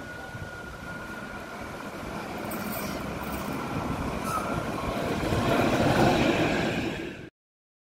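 Vintage electric railcar approaching and passing close on its track, its wheel and running noise growing steadily louder to a peak about six seconds in, with a faint steady whine in the first half. The sound cuts off suddenly near the end.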